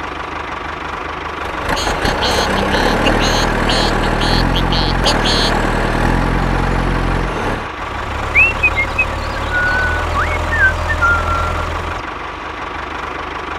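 A heavy vehicle engine, like a truck's, runs steadily at idle, stepping up and down in pitch, with a run of rapid clicks in the first half. A few short whistling chirps follow in the second half.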